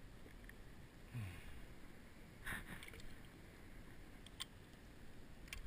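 Faint water lapping around a sit-on-top fishing kayak, with a few light clicks and knocks from handling on board, about two and a half, four and a half and five and a half seconds in.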